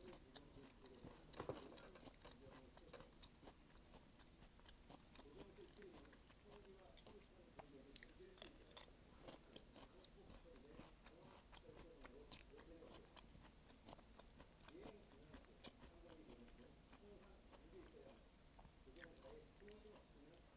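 Faint close-up chewing of malatang, spicy noodle soup, with a few sharp clicks, the loudest about seven and twelve seconds in.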